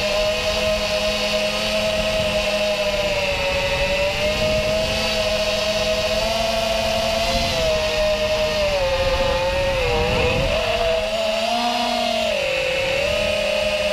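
Racing FPV quadcopter's 2207 2300KV brushless motors spinning 5-inch tri-blade props in flight, a steady whine whose pitch wavers with throttle, dipping about ten seconds in and rising briefly near twelve seconds, over a rough rush of air.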